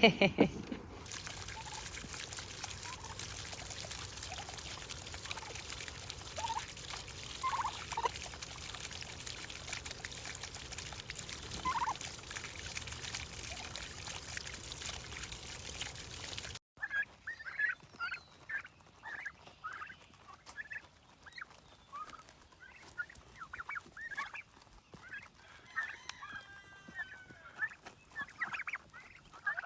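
Flock of chickens clucking and calling, many short calls in quick succession. For the first half a steady hiss covers everything, with only a few faint calls through it.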